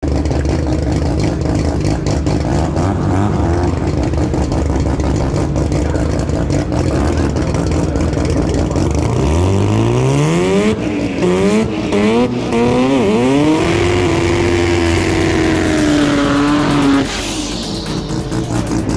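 Drag car engine idling with a rough, uneven note, then revving hard about nine seconds in, its pitch climbing steeply. Several quick rising and falling revs follow, then a long steady high note that drops off suddenly near the end.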